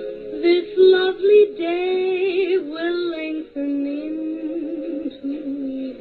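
Music: a singing voice carrying a slow melody in long, wavering notes over a sustained backing.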